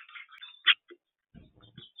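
Small birds giving short chirps and ticks, with one louder chirp a little before the middle.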